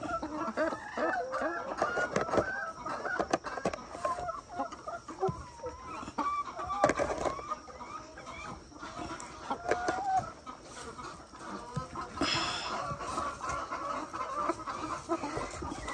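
Laying hens clucking and calling, many short overlapping calls, with a few sharp knocks and a brief rustle about twelve seconds in.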